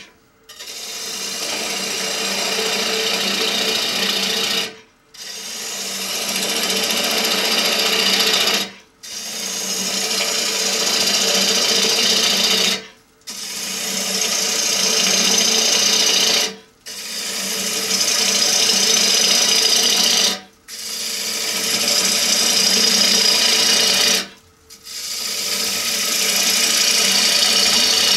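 A bowl gouge hollowing a spinning wooden bowl on an electric lathe, pushed straight into the wood: seven cuts of about four seconds each, separated by short silent breaks. Each cut builds up over its first second into a steady hiss with a low hum under it.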